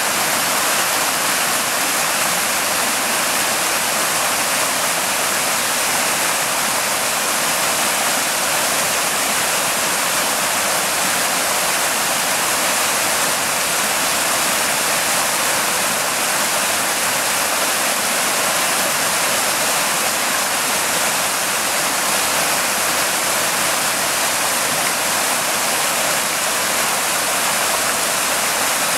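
Creek water rushing over a low rock ledge in a small cascade, a steady, unbroken rush of white water.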